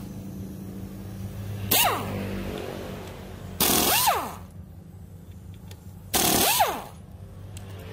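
Handheld pneumatic impact wrench spinning out 10 mm bolts: a short blip about two seconds in, then two longer bursts, each a hiss of exhaust air with a motor pitch that rises and then falls.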